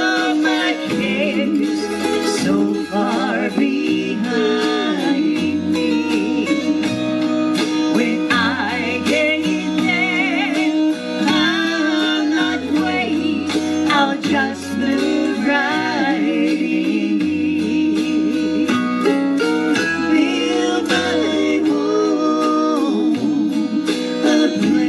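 Country gospel music: acoustic guitar with a bass line stepping between notes and a lead melody that wavers in pitch, with no words sung.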